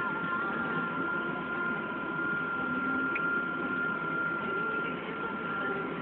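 Case IH MX200 tractor's six-cylinder diesel engine running steadily under load, heard inside the cab while driving across a field, with a steady high whine over it.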